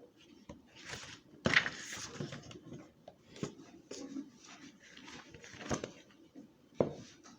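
Faint rustling and light knocks of handling in a quiet room, with a louder rustle about a second and a half in and a sharp knock near the end.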